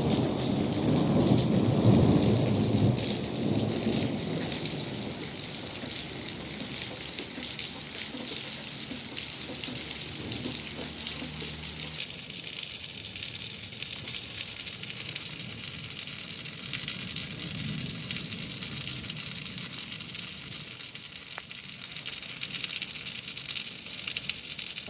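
Heavy rain pouring steadily, with a low rumble in the first few seconds.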